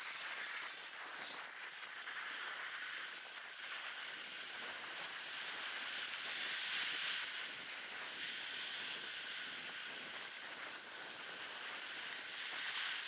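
Small wind-driven waves washing and breaking along a beach, mixed with gusty wind on the microphone. Noise reduction and a high-pass filter leave it as a thin, steady hiss that swells about halfway through and again near the end.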